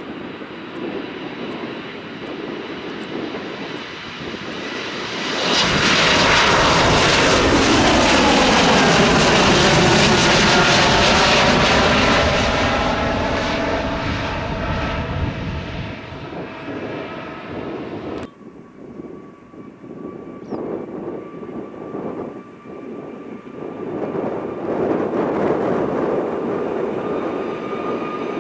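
Jet airliner passing close by: the engine noise swells about five seconds in, stays loud for several seconds, and its tones slide down in pitch as it goes past. It breaks off suddenly about two-thirds of the way through, and another aircraft's engine whine builds near the end.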